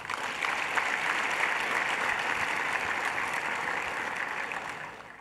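A large audience applauding, breaking out suddenly and dying away near the end.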